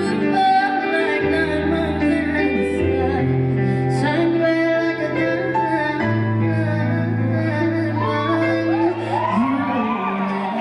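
Live band playing held closing chords, keyboard over sustained bass notes that change every second or two. A female singer's wavering, gliding vocal runs join near the end.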